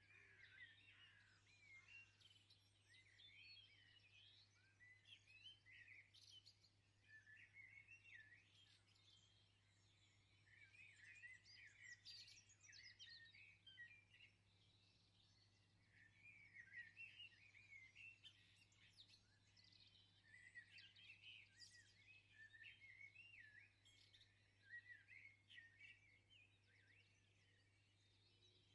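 Faint birdsong: small birds chirping and twittering in quick rising-and-falling phrases, coming in bouts with short lulls, over a steady low electrical hum.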